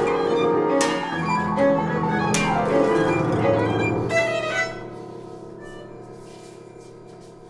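Live chamber music: violin bowing over lower strings, with plucked and struck notes. A little over four seconds in the playing stops and a held chord rings on, fading away slowly.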